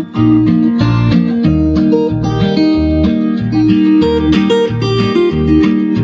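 Guitar-led instrumental music played from a phone through an LG speaker's woofer, driven by a PAM8403 mini amplifier board, with a strong repeating bass line. The sound drops out for a moment right at the start.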